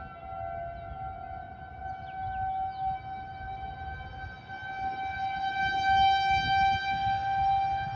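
Federal Signal 2001-130 outdoor warning sirens sounding a steady tone. The sound swells louder about five seconds in and eases again near the end.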